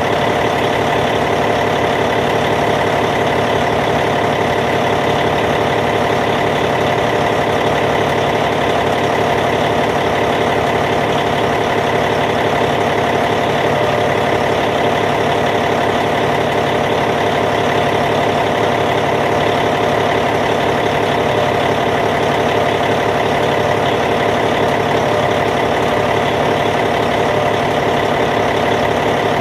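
Caterpillar C15 inline-six diesel engine of a Cat D8T bulldozer idling steadily, with an even, unchanging drone.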